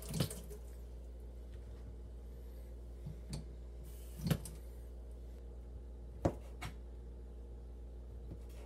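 A handful of separate knocks and taps as a shallot and a chef's knife are handled on a plastic cutting board and laminate counter, the loudest about four and six seconds in, over a steady low hum.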